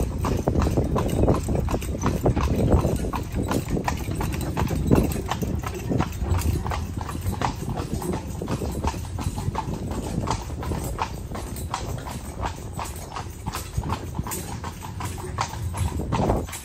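Horse's hooves clip-clopping steadily on a paved road as it pulls a buggy, over a low rumble.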